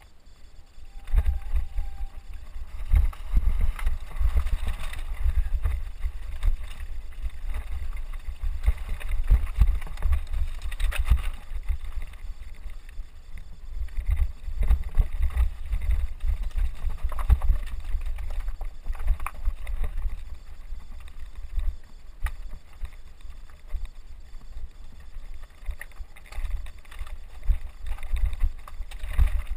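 Mountain bike riding over rocky scree trail: tyres crunching on loose stones, and the bike and camera rattling and knocking over rocks. A heavy low rumble of jolts and wind sits on the action camera's microphone. The noise starts up about a second in.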